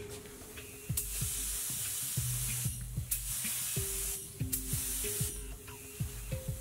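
Gravity-feed compressed-air spray gun hissing as it sprays epoxy primer, in three bursts, the first the longest at about a second and a half, under background music with a steady beat.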